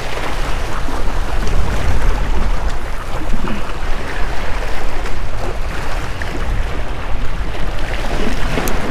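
Small waves washing and splashing against jetty rocks, under a steady rumble of wind on the microphone.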